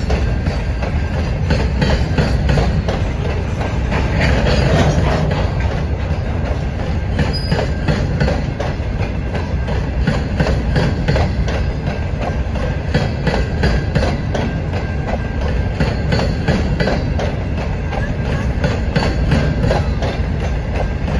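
Open-top hopper cars of a freight train rolling past: a steady rumble of steel wheels on the rails, with repeated clicking as the wheels run over the track.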